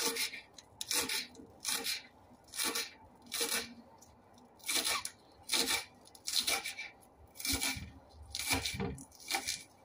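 Kitchen knife slicing through spring onions on a wooden cutting board: a short, crisp crunch with each cut, about one cut a second.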